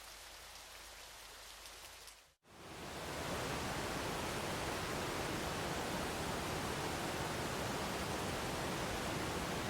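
A light patter of falling water fades out about two seconds in. After a moment's silence, the steady, full rush of a waterfall fades in and holds, louder than before.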